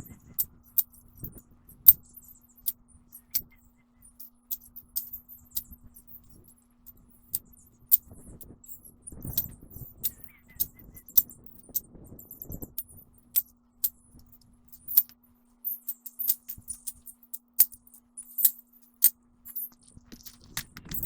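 Irregular sharp metallic clicks and clinks, with a few soft low thumps around the middle and a faint steady hum underneath.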